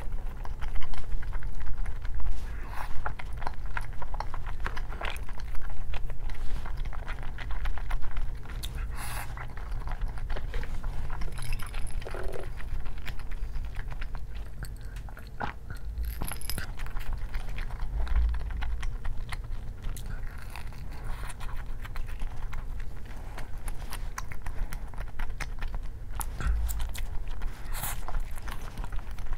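A person chewing and eating, with scattered short clicks and taps, over a steady low hum.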